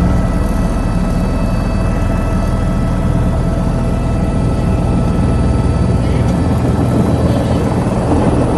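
Helicopter engine and rotor drone heard from inside the cabin: a loud, steady noise with a deep throb and a few fixed whining tones above it.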